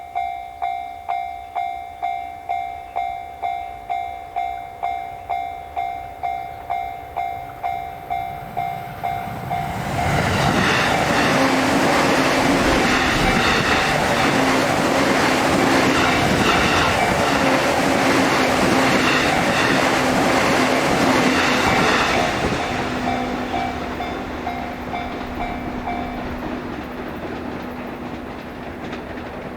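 Japanese level-crossing warning bell ringing its 'kan-kan' at a steady two and a half strikes a second, then an electric train on the JR Sobu Line passes loudly over the crossing for about twelve seconds, drowning the bell, and fades away. The bell stops a few seconds before the end.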